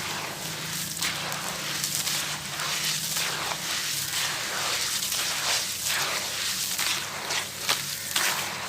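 Gritty molded hearts, the kind made of sand and cement, being crushed and crumbled by hand. It is a steady run of sharp crunches and grainy crackles, a few every second.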